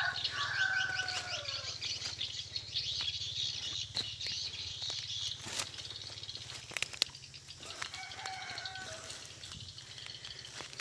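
A rooster's crow trailing off in a falling tone at the start, and another shorter rooster call about eight seconds in. Dense high-pitched chirping runs under them and thins out after about six seconds.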